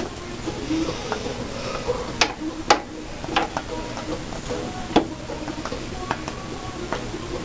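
Hands handling computer parts inside a PC case: scattered small clicks and knocks of plastic and metal, with three sharper knocks about two, three and five seconds in.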